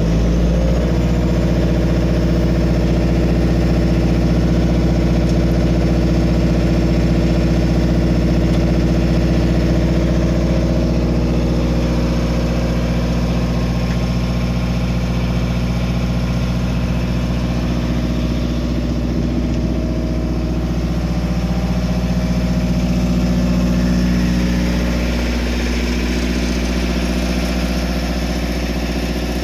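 Cummins AMMPS MEP-1050 15 kW military diesel generator running steadily, with a slight drop in loudness about 25 seconds in.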